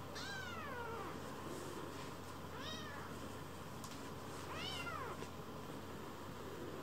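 Young kitten mewing three times, short high calls that rise and fall in pitch, about two seconds apart.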